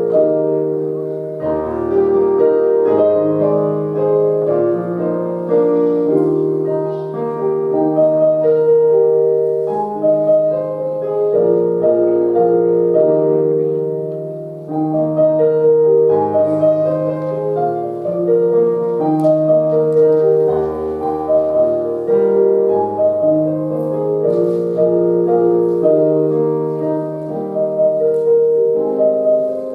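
Slow instrumental keyboard music, piano-like, playing held chords under a melody, with a brief break in the phrase about halfway through.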